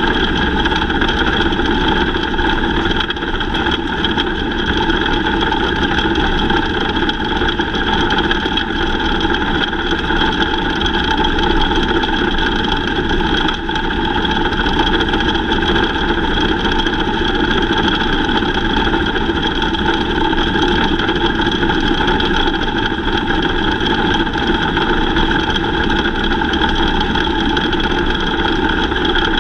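Lightning sprint cars running in a race, their engines making a steady, continuous drone with no sharp breaks.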